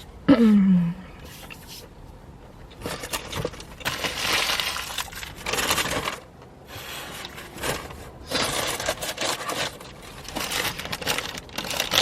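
Paper fast-food wrapper crinkling and rustling in several bursts as food is handled and wrapped up. There is a short falling voice sound, like a hum, about half a second in.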